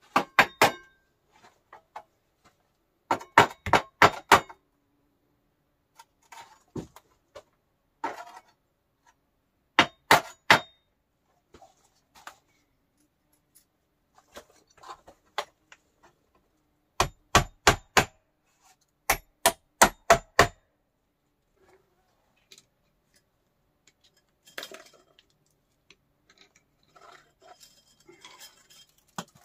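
Metal clanging in short runs of three to five quick strikes, with single knocks between them and fainter scraping and rattling near the end, as sheet-metal stove pipe sections are fitted together.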